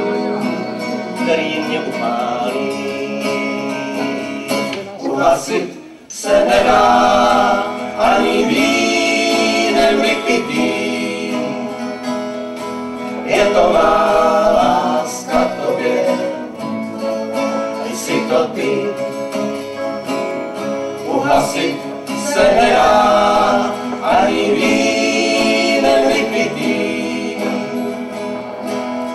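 Acoustic folk band playing live: acoustic guitars strumming while several male voices sing together. The music thins briefly about six seconds in, then comes back with loud sung phrases.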